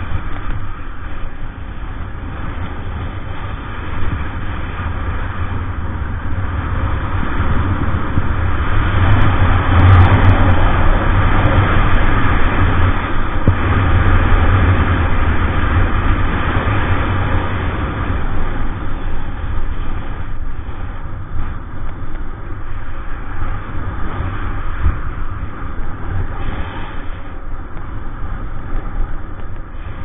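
Wind buffeting a Trevi GO 2500-4K action camera's microphone, with skis hissing and scraping over groomed snow during a downhill run. A steady rushing noise with a heavy low rumble that swells louder about a third of the way in, then eases off.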